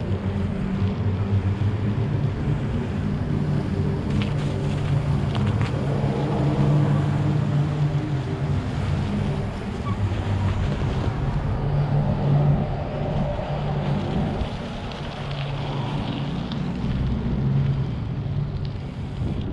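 Riding a bicycle on snow: wind rushing over the camera microphone with a steady hum from the tyres rolling underneath, swelling and easing with the pace, and a few faint clicks.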